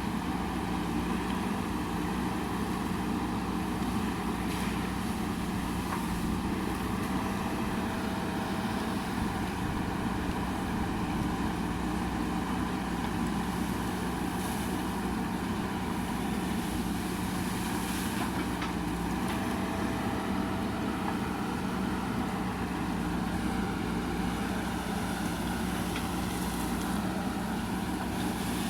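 JCB backhoe loader's diesel engine running steadily, with a constant low hum and no change in pace.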